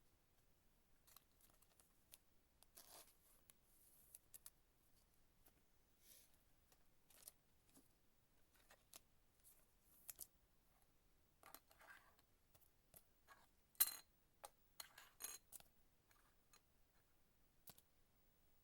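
Faint handling of trading cards: scattered light clicks, slides and rustles as cards are sorted, with one sharper snap about 14 seconds in.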